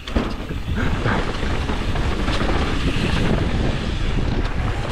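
Wind rushing over the microphone with the steady rumble of a mountain bike's tyres rolling fast down a dirt trail.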